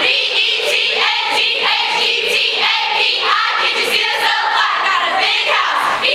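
A group of women singing together in rhythm, a chorus of many voices.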